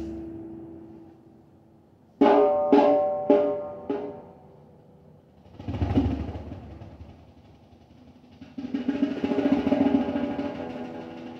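Hand percussion: four ringing, pitched strikes about half a second apart, then a single deep, boomy drum stroke a few seconds later, then a fast roll of ringing strikes lasting about two seconds that fades out.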